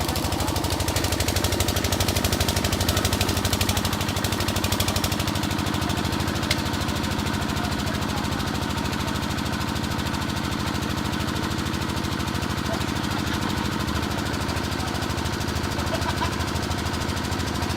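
An engine running steadily at a fast, even pulse, with a single sharp click about a third of the way in.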